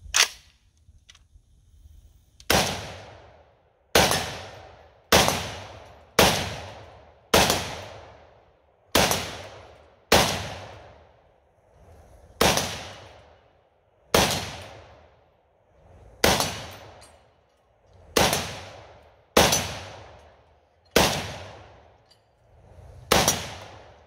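A .308 battle rifle with a 3D-printed receiver firing about sixteen single shots, one to two seconds apart, each followed by an echo that dies away over about a second.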